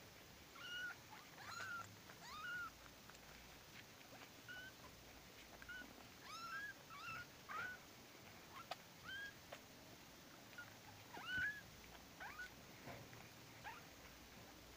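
Young kittens mewing over and over: many short, thin, high-pitched calls that bend upward in pitch, coming irregularly a fraction of a second to a second apart. One louder mew comes about eleven seconds in.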